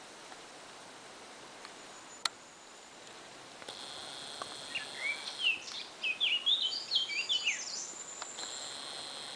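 A songbird sings a quick, varied phrase of rising and falling notes for about three seconds in the middle, over a steady high-pitched buzz that starts a little after three seconds in. Underneath runs the steady rush of shallow water over stones, with one sharp click a little after two seconds.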